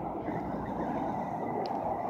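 Steady low rush of road traffic passing on the causeway, with one faint tick near the end.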